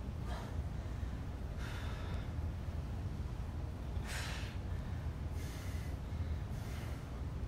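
A man breathing hard from the effort of a leg-lift core exercise: about five short, breathy breaths a second or more apart, over a steady low hum.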